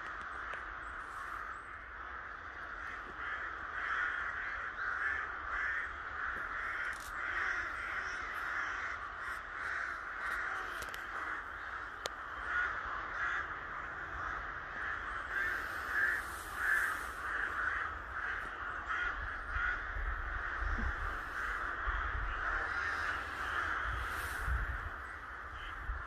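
A large flock of crows cawing high in the trees, many birds calling over one another in a dense, unbroken chorus.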